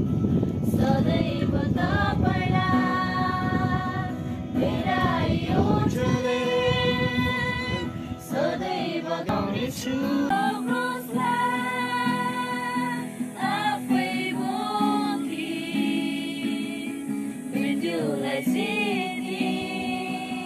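Women singing a song together with an acoustic guitar accompanying them, the voices holding long notes.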